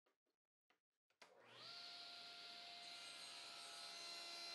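Near silence, then about a second in a table saw's motor switches on, its whine rising quickly and settling to a steady faint hum as the blade spins up to speed.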